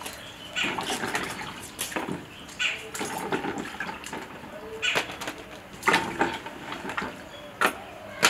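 Potatoes being washed by hand in a bucket of water: irregular sloshing and splashing, in short bursts a second or so apart.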